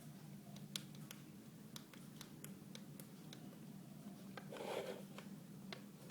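Faint handling noises: scattered light clicks and a short rustle about four and a half seconds in, over a steady low hum.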